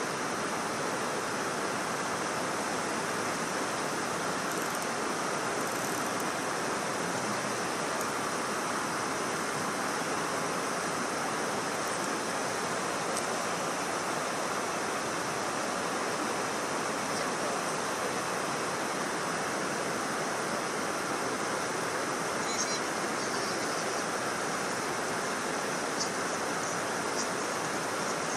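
Steady, unbroken rushing of water pouring over a river dam, with a few faint high chirps near the end.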